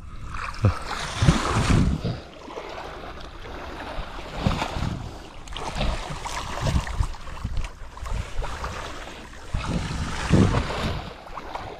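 Water splashing and sloshing around a small boat, with gusts of wind rumbling on the microphone in uneven surges.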